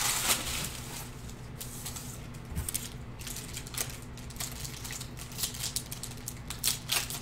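Hands handling trading cards and their foil pack wrappers: a quick, irregular run of small clicks and rustles as the cards are thumbed through.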